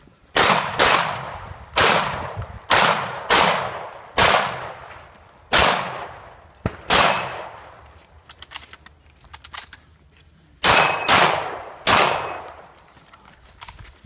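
About eleven loud gunshots from a long gun, fired singly in quick clusters separated by pauses of up to several seconds, each with a long echoing decay.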